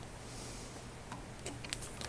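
Faint handling clicks and taps, a few short ones in the second half, over a low steady hum.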